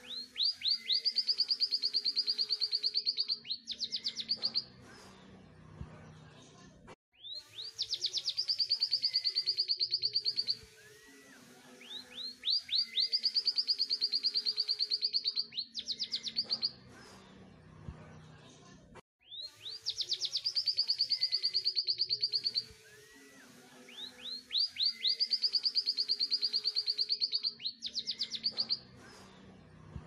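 Caged canary singing: bursts of very fast, high trills lasting a few seconds each, broken by short pauses.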